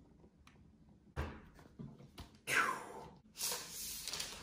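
A fitted cardboard laptop box being opened: a knock about a second in, then rubbing, scraping noises of cardboard on cardboard as the snug lid slides off and the laptop is lifted out.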